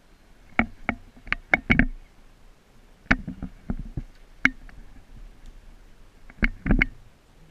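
Airsoft rifles firing single shots, sharp cracks in three irregular bunches of a few shots each.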